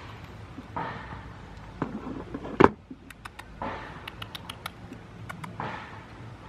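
A goat nosing and bumping the camera up close: rustling and handling noise on the microphone, with one hard knock about two and a half seconds in and a run of small clicks after it.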